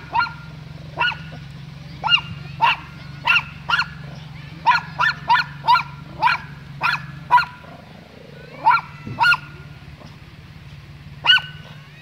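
Chihuahua yapping: about twenty short, high-pitched yaps in quick, irregular runs, with a pause of a couple of seconds near the end.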